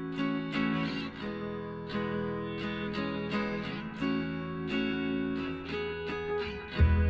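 Background music on acoustic guitar, with picked and strummed notes struck about every half second. A deep, loud bass tone comes in near the end.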